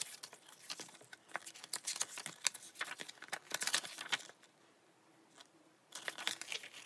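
Rustling, light taps and clicks of a CD album's packaging, photo book pages and paper inserts being handled, with a quiet pause of about a second and a half past the middle.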